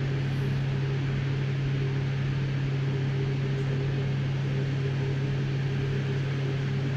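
Electric linear actuator motor of a MET LIFT UP medical bed running, moving the leg section: a steady low electric hum that holds one pitch.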